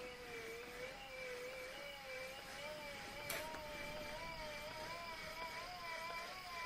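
Electric motor of a Hismith Table Top 2.0 Pro sex machine running an app preset pattern. Its whine wavers up and down and slowly rises in pitch as the thrusting speeds up. There is one sharp click about three seconds in.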